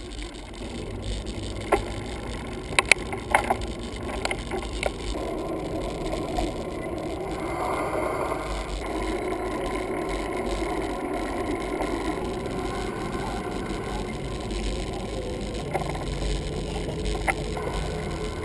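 Bicycle riding on paved ground: a steady rolling noise, with a few sharp rattles and clicks in the first few seconds.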